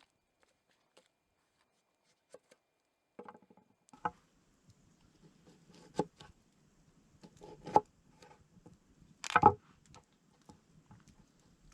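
A handful of irregular sharp knocks and cracks of wood being handled, as when firewood is snapped or knocked together. The last, about nine seconds in, is the loudest and comes as a short double crack.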